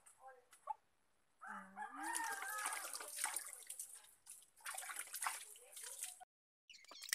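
A rooster crows once about a second and a half in. Around it, water splashes and sloshes as clothes are rinsed by hand in a plastic basin.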